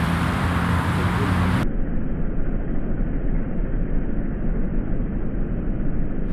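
Steady rumbling noise of a thunderstorm. About a second and a half in, the sound turns abruptly duller and more muffled.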